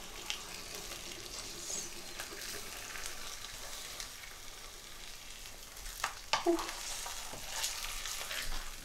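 Fried eggs sizzling in hot oil in a non-stick frying pan, a steady hiss. A few short clicks and knocks from the pan and utensil come around six seconds in and again near the end.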